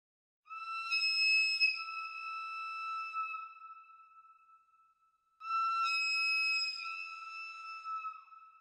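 Flute music: two long held high notes, the second starting about five seconds after the first, each dipping slightly in pitch as it fades out.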